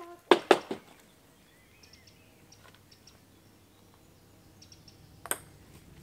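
Faint bird chirps over quiet woodland air, with a few sharp knocks in the first second and a single sharp click of a table-tennis ball near the end.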